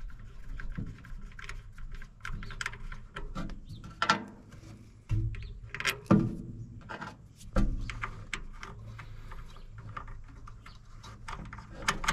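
A heavy insulated battery cable being handled and pushed through an engine bay: rubbing, scraping and light clicks as the cable and its metal lug brush against the metal, with a few louder knocks, the sharpest about four and six seconds in.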